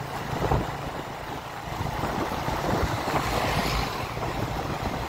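Wind rushing and buffeting over the microphone on a moving motorcycle, with low engine and road rumble underneath.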